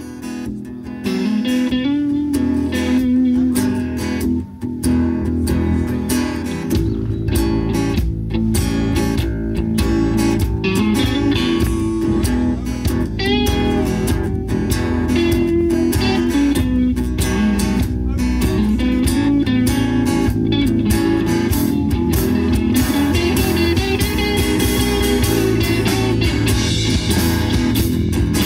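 A live rock band playing: electric and acoustic guitars over bass guitar and a drum kit. The drums and full band come in about a second in, and the low end fills out about seven seconds in.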